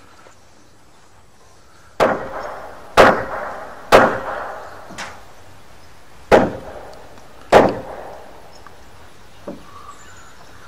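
A hammer striking wooden roof-truss framing: six sharp blows about a second apart, the fourth weaker, each ringing briefly, as lumber is nailed together.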